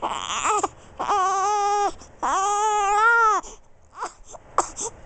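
Three-week-old baby crying: three cries in a row, the last the longest at just over a second, followed by a few short, faint fussing sounds.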